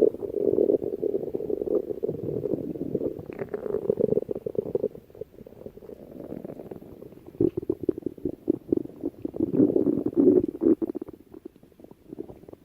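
Stomach growling in long, low rumbles: two loud stretches with a quieter gap of a couple of seconds between them, fading near the end.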